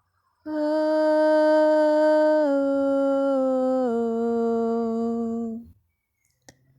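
A woman's voice toning one long held note, close to a hum, that steps down in pitch twice and then stops.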